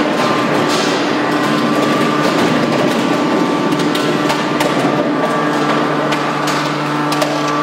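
Hydraulic scrap metal baler running: a steady machine hum from its hydraulic power unit, with scattered sharp metallic knocks and clanks.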